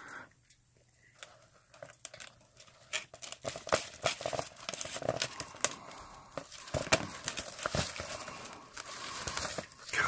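Fried potato wedges tumbling from a wire fry basket into a glass bowl lined with paper towels: irregular light clicks and rustling, with the paper towel crinkling, starting about a second in.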